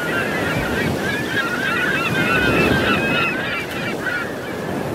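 A flock of birds calling, many overlapping short calls, over a steady wash of surf. The calls thin out near the end.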